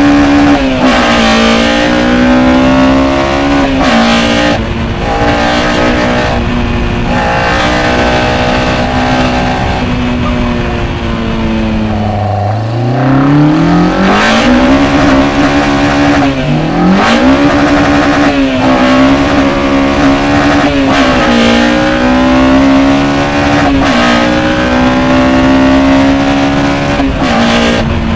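Honda K20 four-cylinder engine on individual throttle bodies in an Integra Type R DC2, heard from inside the cabin while driven hard. The revs rise and fall back again and again. About halfway through they drop right down and then climb steeply.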